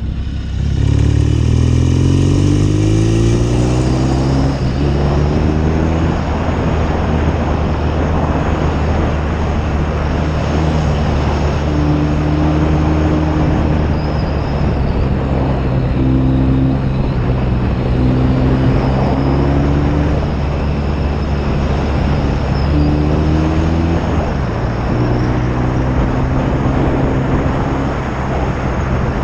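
1972 BSA Lightning 650 parallel-twin engine accelerating, its pitch climbing over the first few seconds, then running at fairly steady revs with small rises and falls, over a steady rush of wind noise.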